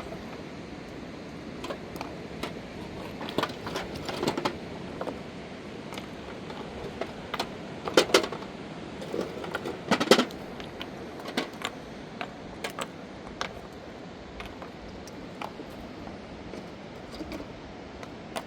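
Irregular knocks and clatters of hard objects being handled, loudest twice, about eight and ten seconds in, over a steady rush of river water.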